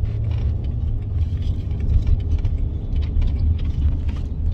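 Steady low rumble of a car heard from inside the cabin, with a few faint short clicks over it.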